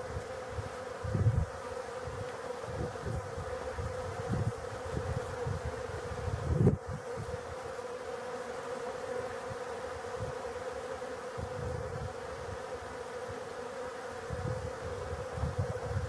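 Steady buzzing hum of a crowd of honeybees flying and landing around a bee waterer, with a few brief low rumbles about a second in and near the middle.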